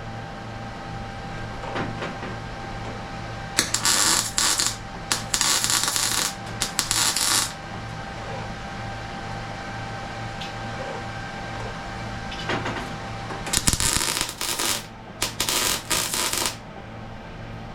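Metal fabrication work over a steady shop hum: two clusters of loud, short, hissing bursts, each cluster a few seconds long, one about four seconds in and one near the end.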